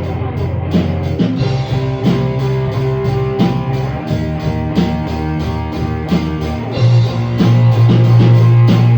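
Instrumental break in a rock band demo: guitar, bass guitar and drum kit playing together with no vocals, the drums keeping a steady beat.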